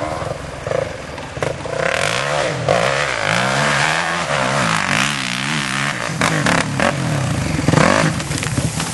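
Motocross bike engine revving hard as it climbs a steep sandy slope. From about two seconds in, its pitch rises and falls again and again as the throttle is worked, over a rushing noise.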